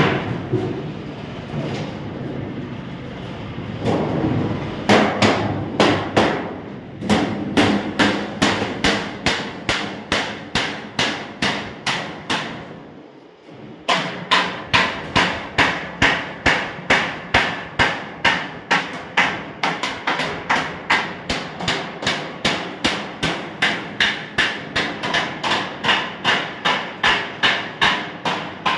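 Rapid, evenly paced hammer blows on metal, about two to three strikes a second, starting about four seconds in and broken by a short pause about halfway through.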